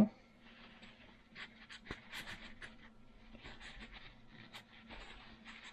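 Light scratching and rubbing as a paper towel wipes residue off a Tillotson HR76A carburetor body, with scattered small clicks of handling. A faint steady hum runs underneath.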